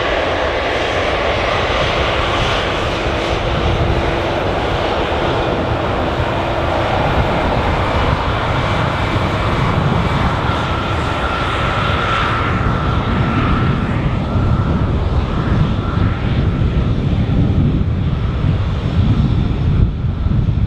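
Airbus A320 jet engines at taxi power as the aircraft rolls past, a steady whine with a thin high tone strongest about halfway through. A low rumble grows in the second half as it moves away.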